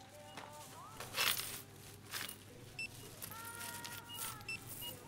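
Thin plastic grocery bag rustling as items are packed into it at a checkout, the loudest crackle about a second in. A few short, high beeps from the checkout register come in later.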